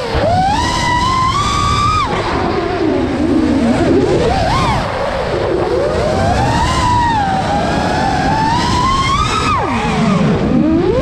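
Brushless motors and propellers of an iFlight Nazgul 5 FPV quadcopter whining in flight, recorded from its onboard camera. The pitch keeps rising and falling with the throttle, dropping sharply at the start and again near the end, over a rush of wind.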